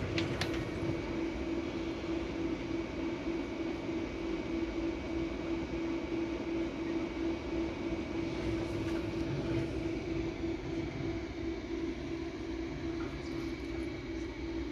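Steady electrical hum from equipment running on the batteries, most likely the inverter: one constant mid-pitched tone over a low rumble, with no break.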